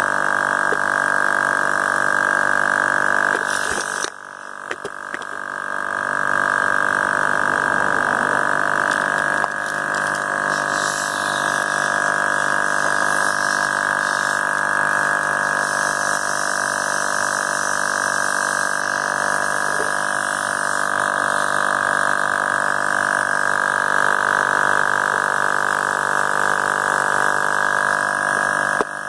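Portable 12 V tire inflator compressor running steadily with a buzzing whine, pumping air into an aerosol can as the pressure builds toward about 80 psi. About four seconds in it drops away briefly, then builds back up to a steady run.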